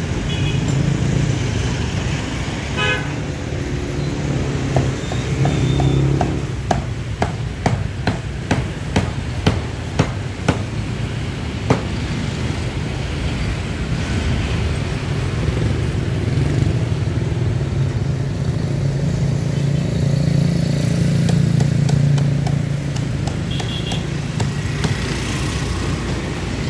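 Cleaver chopping crispy roast pork on a thick wooden chopping block: a run of about a dozen sharp chops, roughly two a second, between about five and twelve seconds in. Under it, a steady rumble of street traffic, with a vehicle horn tooting.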